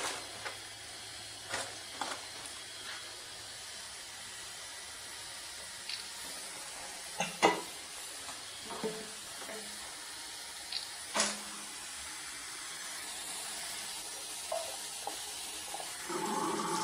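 Faint steady hiss with scattered clicks and knocks of drain-cleaning tools and inspection-camera gear being handled, the loudest knock about halfway through. Near the end water starts running into the washbasin.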